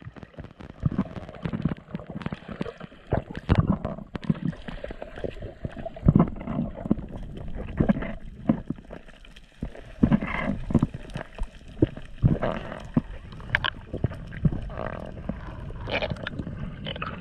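Muffled underwater sound through a camera's waterproof housing: water swirling and gurgling, with irregular knocks and bumps as the diver moves and handles things.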